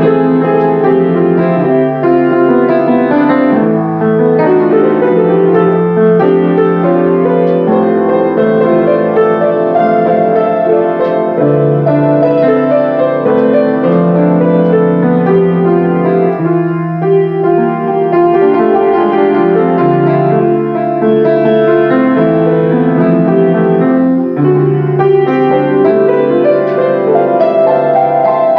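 Grand piano played solo: flowing chords over a bass line that moves to a new note every couple of seconds, at a steady loudness.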